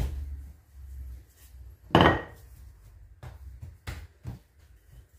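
Wooden rolling pin knocking on a hard countertop while puff pastry dough is rolled and folded: a sharp clack about two seconds in, the loudest, then a few softer knocks and thuds.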